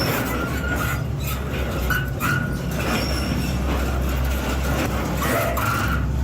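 Industrial shredder running under load: a steady low hum with frequent crunching and cracking and a few brief high squeaks as material is torn apart.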